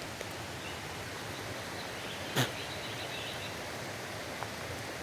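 Steady outdoor background noise with one sharp knock about halfway through.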